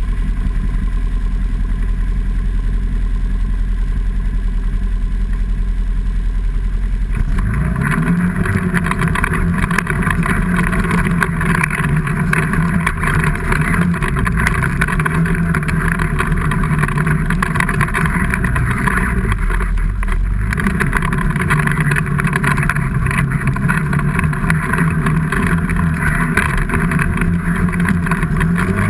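Vehicle engine working hard on a steep off-road climb. A low rumble gives way about seven seconds in to a louder, steady engine note, which eases off briefly around twenty seconds before pulling again.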